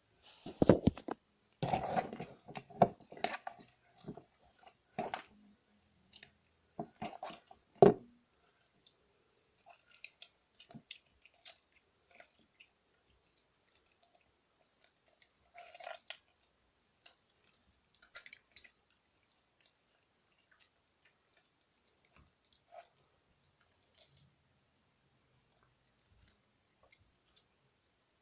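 Glitter slime being mixed by hand: wet squelching and sticky clicking, busy and fairly loud for the first eight seconds, then sparser and fainter.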